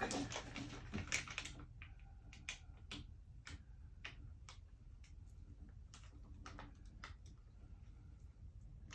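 Transfer tape being peeled off a freshly applied, still-damp vinyl decal, giving faint, irregular clicks and crackles.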